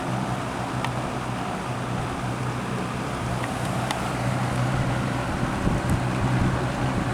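Lakewood 20-inch box fan (model P-223) running steadily on medium speed: a steady motor hum under the rush of moving air, with a few faint ticks.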